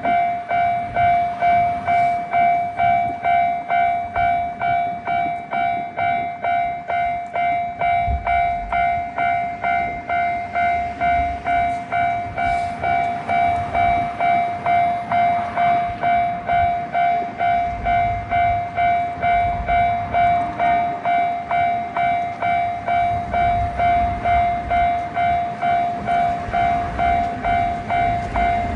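Japanese railroad crossing warning bell ringing steadily, a clanging tone repeating nearly twice a second, over the low rumble of a train.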